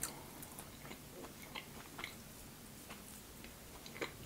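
Faint chewing and small mouth clicks of a person eating a piece of homemade waffle, in scattered short ticks.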